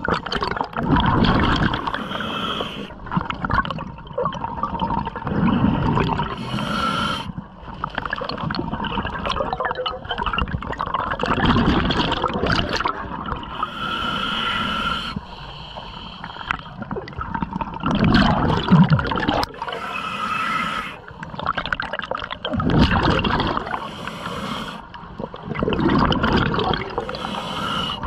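Scuba diver breathing through a regulator underwater: a hissing draw on each inhale alternating with a bubbling rumble on each exhale, the cycle repeating several times.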